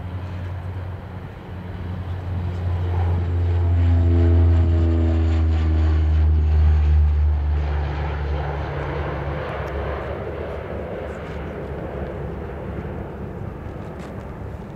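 De Havilland Canada DHC-8-102 Dash 8's twin turboprops at takeoff power: a deep propeller drone with higher engine tones. It swells to its loudest about four to seven seconds in as the aircraft passes, the tones dropping slightly in pitch, then fades as it climbs away.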